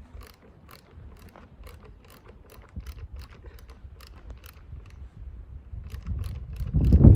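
Ratchet wrench clicking in quick, even strokes, about three to four a second, as a bolt on a truck brake chamber's clamp is worked loose. A much louder low rumbling noise rises about six seconds in.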